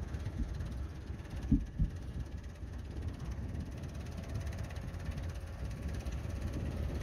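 Forklift engine running with a steady low rumble. Two short dull thumps about a second and a half in.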